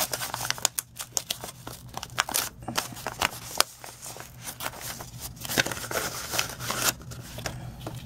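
Kraft-paper envelope being opened by hand, its paper rustling and crinkling with many small crackles, as a rubber cling stamp in a plastic sleeve is slid out.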